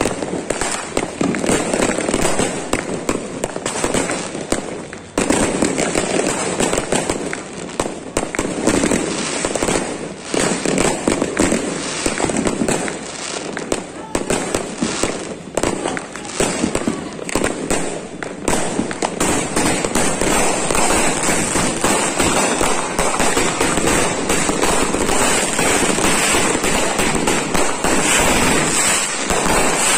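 Dense barrage of fireworks and firecrackers going off, many crackling pops and bursts overlapping without a break, with a brief lull about five seconds in.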